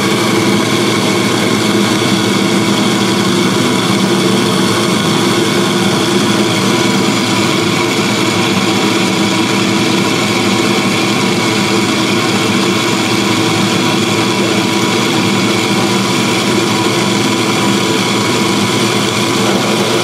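Curtis GSG 3BLK commercial bulk coffee grinder running steadily at its finest, espresso setting, grinding beans. It makes a loud, even machine hum with a constant pitch.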